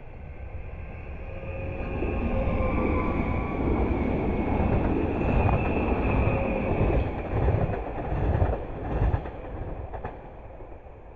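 R-Net Stadler FLIRT electric multiple unit passing close by on the track. Its wheels rumble as the sound builds over the first couple of seconds and stays loud, with a thin high whine running over it, then eases off near the end.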